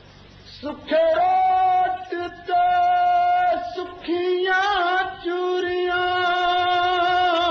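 A man singing solo in a high voice, drawing out long held vowel notes with slow turns of pitch, no words made out. The singing starts about a second in and runs in long phrases with brief breaths between them.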